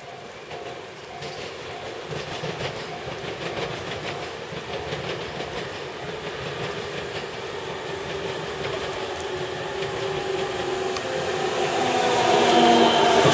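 Tobu 100 series Spacia electric limited express train pulling into the station, growing steadily louder as it nears, its wheels clicking over rail joints. Near the end, as it runs alongside the platform and slows, a whine drops slightly in pitch.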